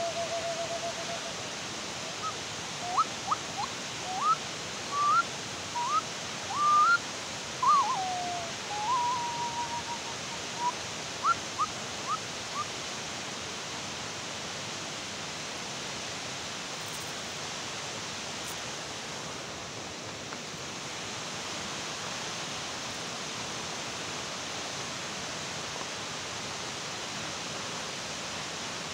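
A flute-like wind instrument plays a short held note, then a phrase of brief upward-scooping notes with one longer held note, over a steady hiss. The notes stop about halfway through, leaving only the hiss.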